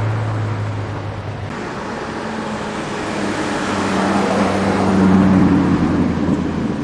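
Car engines in street traffic. A low, steady engine note cuts off about a second and a half in. Then another car's engine note swells, is loudest about five seconds in, and fades away as the car passes.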